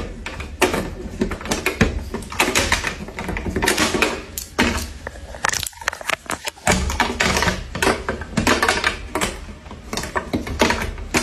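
Hands clicking and knocking against a wall-mounted plastic dispenser: a quick, irregular run of sharp plastic clicks and taps, with a low hum underneath.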